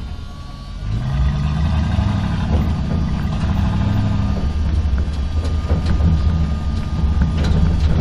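Truck engine driving in a parking structure: quieter at first, it revs up about a second in with a rising pitch, then runs on as a steady low rumble with a few faint clicks.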